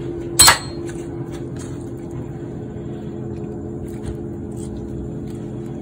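A steady machine hum with a few fixed low tones runs throughout. Over it there is one sharp click about half a second in, and a few faint taps as thin cucumber slices are handled on the counter.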